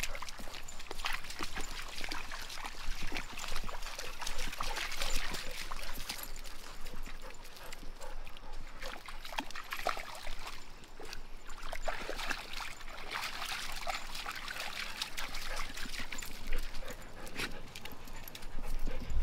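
A dog wading through shallow creek water, its legs splashing irregularly, over the trickle of the low creek.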